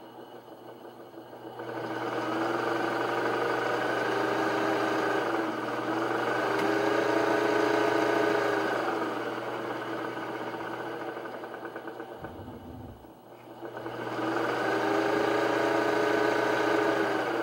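Sewing machine's electric motor run through a mercury resistor foot pedal, speeding up and slowing down as the pedal is pressed and eased off. Its hum rises and falls in pitch and volume, nearly stopping about 12 s in before speeding up again.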